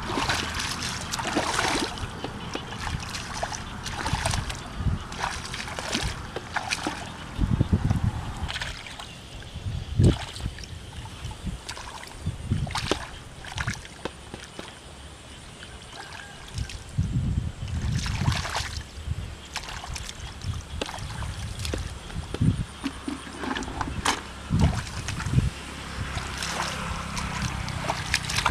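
Hands groping and sloshing through shallow muddy paddy water, with irregular splashes and low thumps, the sharpest about ten seconds in.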